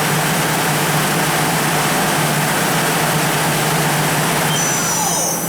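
Mori Seiki ZT-1500Y CNC lathe's right-hand spindle with its 3-jaw chuck spinning at about 3000 RPM (50% speed override). It makes a loud, steady whir with a low hum. Near the end the high hiss fades away and the level drops a little.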